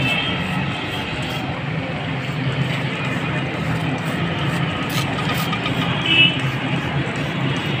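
Steady city street traffic noise, with a short high-pitched tone about six seconds in.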